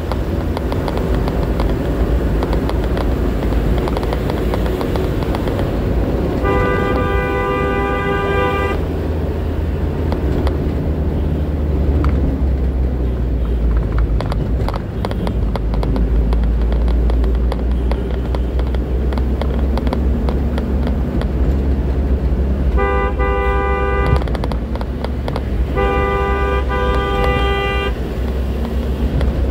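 Steady low engine and road rumble heard from inside a moving truck's cab, broken by three long horn blasts: one lasting about two seconds about six seconds in, and two more close together near the end.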